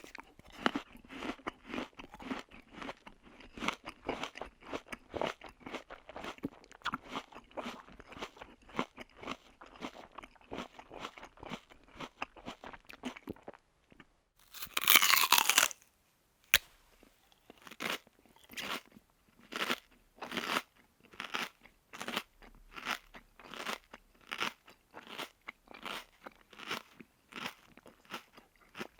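Close-miked crunchy chewing of food: rapid, dense chewing strokes for about the first half, a brief pause, then a loud noisy burst lasting about a second and a half, followed by slower crunching chews about twice a second.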